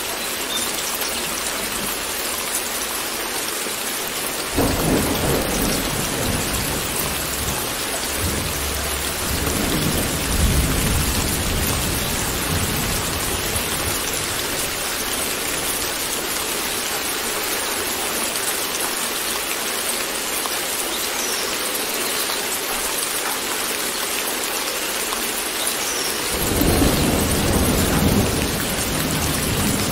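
Steady rain with rolling thunder. Deep rumbles of thunder swell up three times: about four seconds in, again around ten seconds, and near the end, when a longer roll begins.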